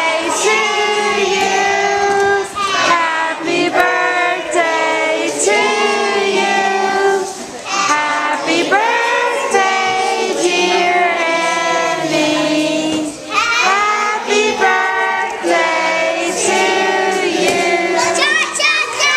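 Children singing a song together, in sustained melodic phrases with short pauses between them.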